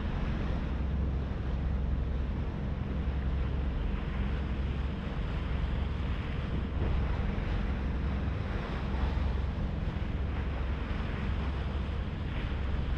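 HADAG harbour ferry under way: a steady low engine drone, with wind on the microphone and water rushing along the hull.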